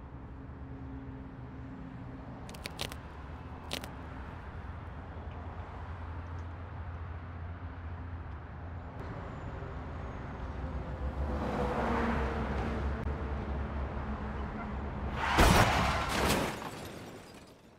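Steady low rumble of road traffic, with a few sharp clicks about three seconds in. The noise swells and peaks in a loud rush near the end, then fades out.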